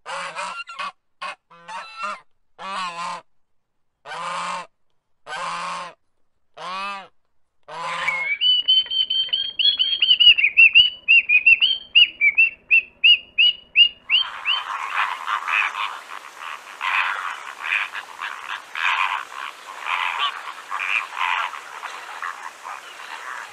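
Geese honking: a series of separate, pitched honks, one every half second to a second. About eight seconds in, this gives way to a rapid run of high, thin bird chirps. From about fourteen seconds there is a dense stretch of harsh, noisy bird calls.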